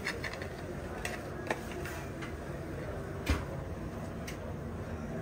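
Scattered light clicks and taps of a metal spatula against a metal tray, with one sharper knock about three seconds in, over steady kitchen background noise.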